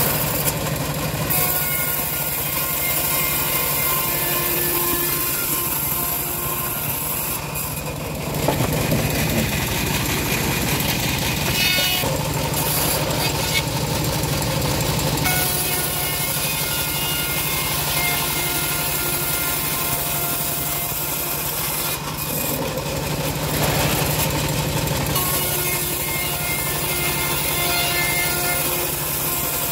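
Homemade bandsaw mill ripping dry acacia planks: a steady machine drone with the blade hissing through the wood, louder for a few seconds at a time several times.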